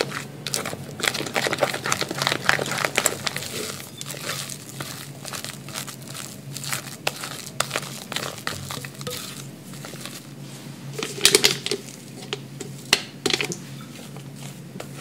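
A spatula folding whipped cream and green tea paste in a glass bowl: soft, wet squishing and scraping, busiest in the first few seconds. Near the end come a few sharper crinkles as the cream is scooped into a plastic piping bag.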